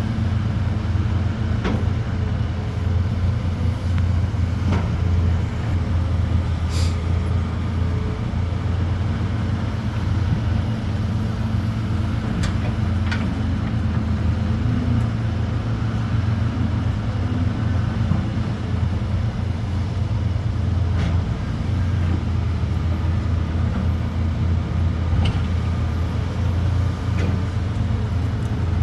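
Heavy construction-site diesel engines running steadily: a deep, constant drone with a few brief clicks and knocks.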